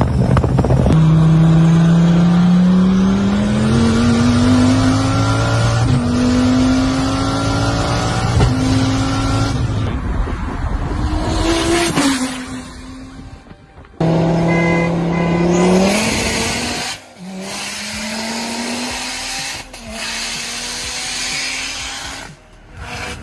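Twin-turbo Dodge Viper V10 at full throttle, its pitch climbing and dropping back with each upshift as it accelerates hard. The sound fades about thirteen seconds in, and a second hard pull starts suddenly a second later, running up through more upshifts.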